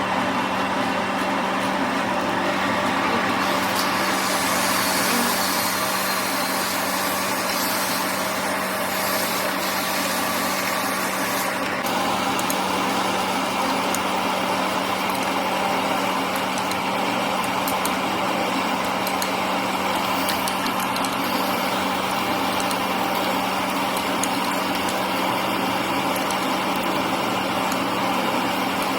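Steady mechanical running noise with a constant low hum, its texture shifting slightly about twelve seconds in.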